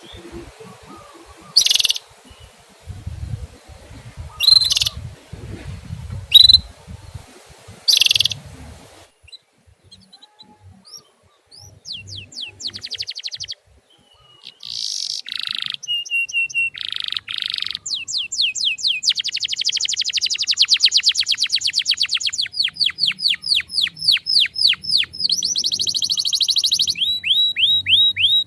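Songbird calls: four loud, sharp single calls a second or two apart over a low rumble, then after a short pause a cleaner recording of fast trilled song, rapidly repeated falling notes that grow fuller and louder from about halfway in.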